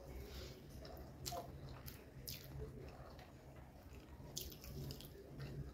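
Close-miked mouth sounds of a person chewing a handful of chicken biryani, with short wet smacks and clicks every second or so. A faint low hum runs underneath.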